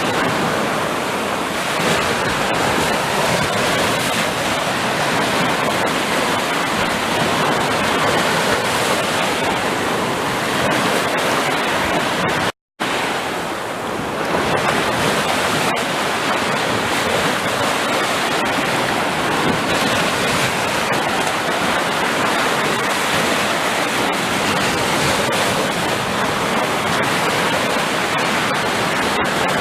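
Sea surf: a steady rush of waves, broken by a split-second cut to silence about twelve and a half seconds in.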